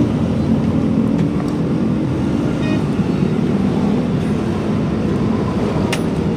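Steady low rumble of motor vehicles and road traffic, with a sharp metallic click near the end.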